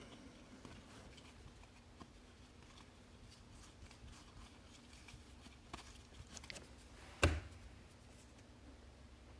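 Faint handling of a stack of baseball trading cards: soft sliding and small clicks as the cards are flipped through, then a single thump about seven seconds in as the stack is set down on the table.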